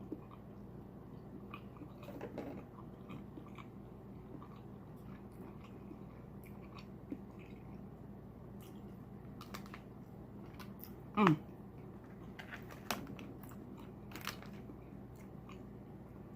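A person chewing and lip-smacking close to the microphone while eating seafood-boil food, with scattered small wet clicks. About eleven seconds in comes a short, loud "mm" of enjoyment.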